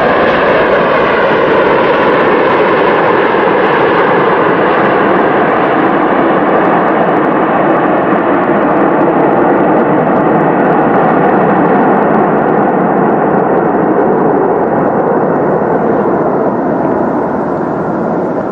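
Twin-engine wide-body jet airliner's engines on the runway as it passes and draws away: a loud, steady rush of jet noise with a fading whine at first, growing duller and slowly quieter near the end.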